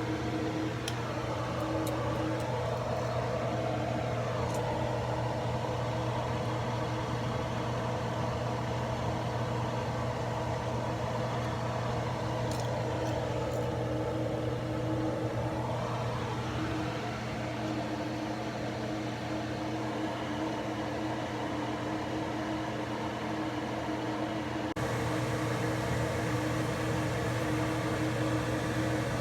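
Bus engine and road noise heard from inside a moving bus: a steady drone whose engine pitch rises and falls twice, as with acceleration and slowing. Near the end the background shifts abruptly to a similar steady hum.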